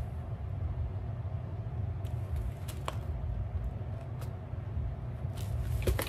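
Steady low rumble of background room noise, with a few faint clicks and crinkles from a plastic pouch of wax melts being handled.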